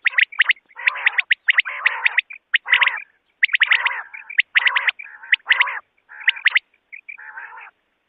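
Recorded quail calls used as a hunting lure. Quick runs of short, sharp, high chirps come in clusters, alternating with harsher raspy calls and broken by brief pauses.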